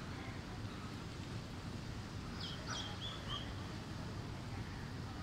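Heavy rain falling in a steady, even hiss, with a few short bird calls about two and a half to three and a half seconds in.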